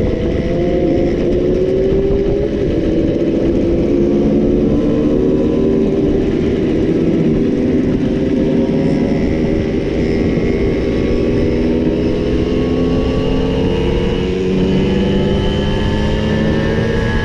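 Several Simson two-stroke moped engines running together at different pitches, their tones rising slowly as the mopeds gather speed.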